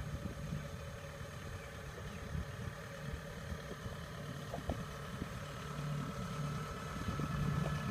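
Tracked rice combine harvester's engine running steadily as the machine drives closer, with a steady whine above the engine hum and the sound growing louder toward the end.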